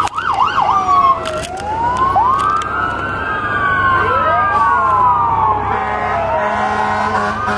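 Emergency vehicle sirens passing close by: a fast yelp in the first second, then several overlapping wails rising and falling in pitch. Near the end a steady blaring tone with several pitches joins in.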